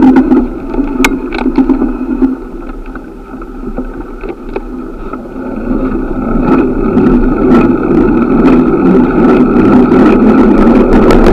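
Wind rushing over the microphone and road noise while riding a bicycle in traffic, with scattered sharp clicks and knocks. The rush dips quieter around the middle and builds back up towards the end.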